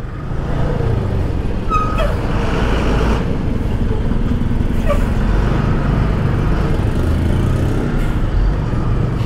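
Yamaha motorcycle engine running at low speed while crawling in slow street traffic, a steady low rumble mixed with the engines of trucks and other vehicles close by.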